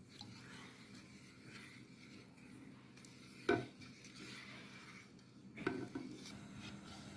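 Silicone spatula stirring sugar and water in a nonstick pot: a faint gritty scraping of sugar not yet dissolved on the pot's bottom. There are two short knocks, one about three and a half seconds in and one near six seconds.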